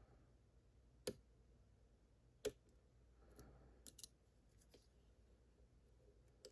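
Faint, scattered metallic clicks, about five at uneven intervals, from a lock pick and tensioner working the pins inside an Evva DPI padlock's keyway during picking.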